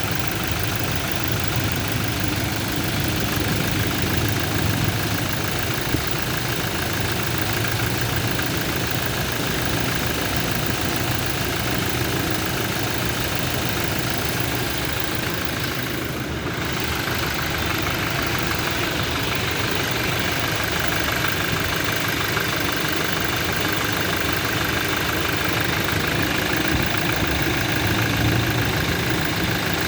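Toyota Innova turbodiesel engine idling steadily with its top cover off. The mechanic finds knocking at cylinders 2 and 4 and puts it down to injectors that no longer atomise their spray.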